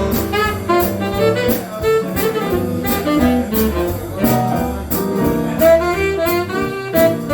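Small swing jazz band playing, with a tenor saxophone carrying the melody over piano, bass and drums; the cymbal keeps a regular beat.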